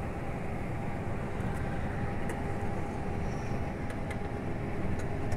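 Steady in-cab running noise of a Scania R440 truck at highway speed: the rumble of its DC13 straight-six diesel and the tyres on the road, with a faint steady hum and a few light ticks.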